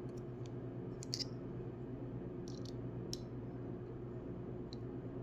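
A few light, scattered clicks of small metal tools being handled, a driver bit working at a folding knife's screws, over a steady low hum.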